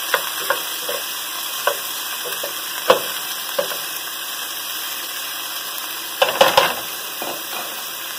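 Chopped onion and ginger sizzling steadily in hot oil with mustard and cumin seeds in a pot. A utensil scrapes and knocks against the pot now and then as it is stirred, with a brief burst of scraping about six seconds in.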